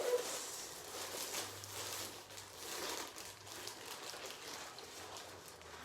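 Plastic packaging crinkling and rustling in short, irregular bursts as it is handled.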